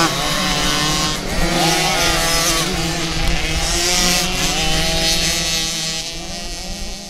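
Several small kids' motocross bikes riding past on a dirt track, their engines overlapping and revving up and down between gears. The sound fades near the end.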